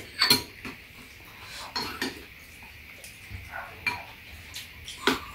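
Metal spoons and chopsticks clinking and scraping against bowls while eating, a handful of separate clicks spread through the few seconds.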